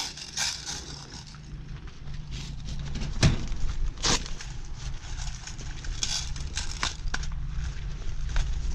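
Scattered sharp clicks and knocks of airsoft gear being handled, as the rifle is set down on the hard plastic top of an old appliance, over a low rumble.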